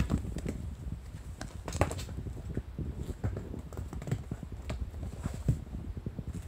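Kittens scampering and tussling on tatami mats and climbing onto a lap: a rapid, irregular patter of soft paw thumps and small knocks.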